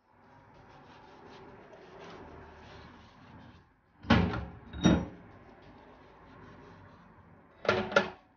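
Metal range-hood grease filters being handled and set down on the kitchen counter: faint handling noise, then two sharp clanks about four and five seconds in and a quick rattle of knocks near the end.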